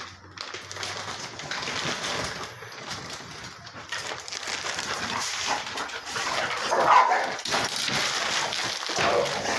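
Dogs barking and whining, loudest about seven seconds in.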